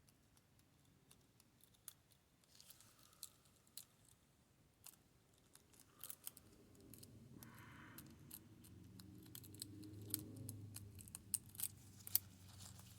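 Faint, scattered small clicks and scrapes of a lock pick and tension wrench working the pins of a Yale pin-tumbler lock. A faint low rumble builds in the second half.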